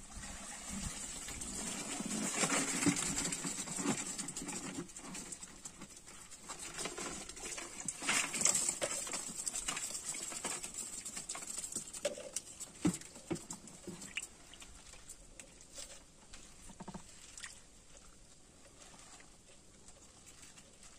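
A black cylindrical shrimp trap (covo) being hauled out of the water and handled in a wooden canoe: water dripping and splashing off it, with irregular knocks and rustles. The sound is loudest about two to three seconds in and again around eight seconds in, then it settles into quieter handling noises.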